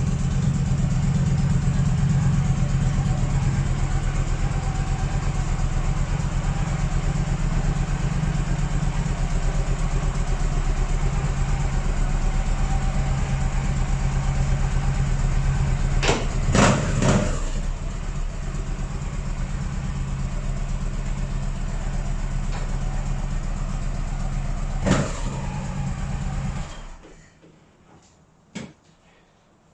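Motorcycle engine idling steadily, with a few sharp knocks around the middle. Near the end it cuts off suddenly and is followed by faint clicks.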